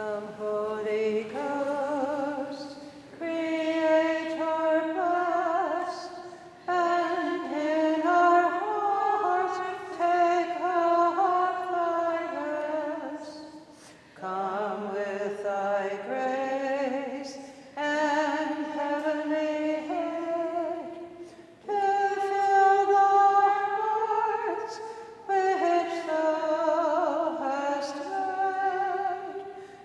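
Unaccompanied female singing in slow, held phrases, with short breaks between them.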